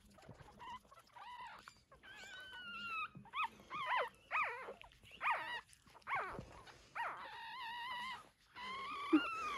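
Newborn Cavalier King Charles Spaniel puppies squealing and whining as they jostle for a place to nurse. A run of short, high cries that drop in pitch gives way to a couple of longer held whines near the end.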